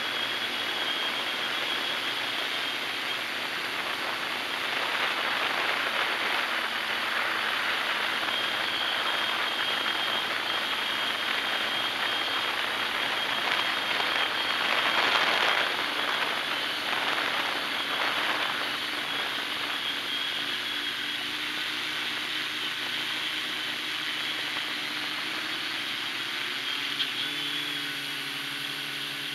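Hexacopter's electric motors and propellers running steadily in flight, heard from a camera on the frame: a rushing drone with a faint high whine that swells louder twice.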